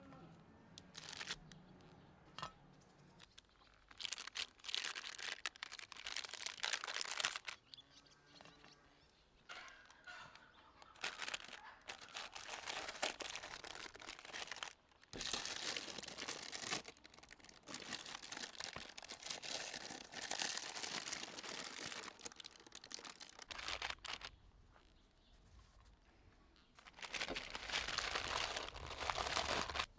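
Rustling and crinkling handling noise in several bursts, each a few seconds long.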